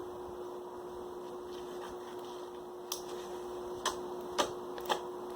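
Sharp little clicks and pops from fluffy slime of glue and shaving foam being squeezed and stretched by hand: about five of them, irregular, starting about three seconds in, over a steady low hum.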